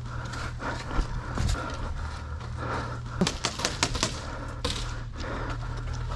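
Airsoft gun shots: a quick run of about six sharp clicking cracks, all within a second, about three seconds in, with a few single clicks around it over a steady low hum.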